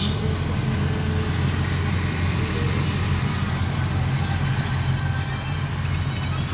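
Mahindra Bolero Pickup driving at a steady pace, heard from inside the cab: a constant low engine drone with road noise.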